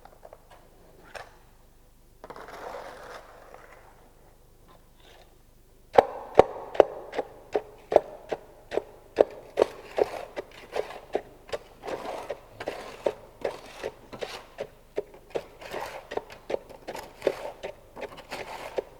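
Fresh concrete being compacted in a metal test mould: a short scrape, then from about six seconds in a steady run of sharp, ringing strikes, about two to three a second.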